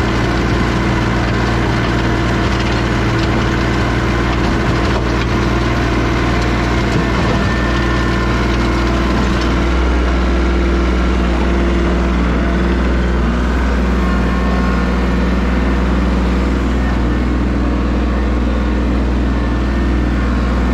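New Holland TC33 compact tractor's diesel engine running steadily while driving the field with its PTO rototiller; the low engine hum grows stronger about halfway through.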